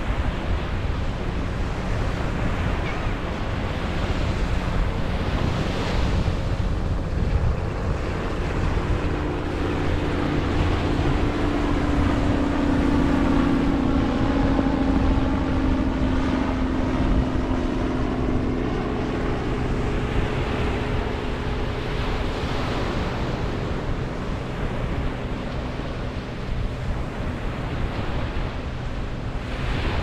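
Ocean surf breaking and washing up a sandy beach, with wind buffeting the microphone. A low motor drone from something passing swells in about a third of the way through, is loudest around the middle, and fades away after about two thirds.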